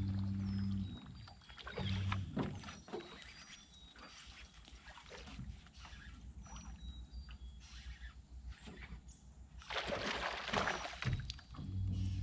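Electric trolling motor humming steadily, cutting off about a second in, blipping briefly near two seconds and starting again near the end. In between come faint water noise, light ticks and small birds chirping, then a loud splash about ten seconds in.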